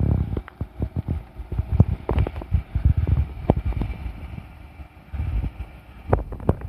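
JR 211 series electric train's wheels clattering over rail joints, a run of irregular sharp knocks and heavy thuds.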